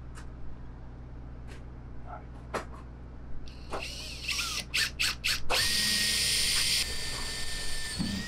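Power drill: a few short bursts on the trigger with a rising whine, then a steady run at speed for several seconds, starting about halfway through. A few light clicks and knocks come before it.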